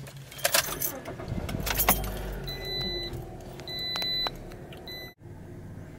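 Keys jangling on the ring as a Toyota's ignition key is turned. The engine then starts, its pitch flaring and falling back to idle, while a dashboard warning chime beeps three times. The sound cuts off abruptly about five seconds in.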